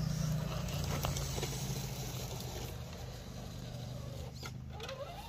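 Radio-controlled scale crawler truck driving over leaf litter: a steady low drone from its motor that grows fainter as it moves off, with light scuffing and ticking from the ground.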